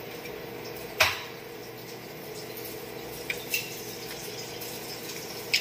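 Clicks from parts being handled inside an opened gas range: one sharp click about a second in, a few lighter ones later, over a steady hiss with a low hum.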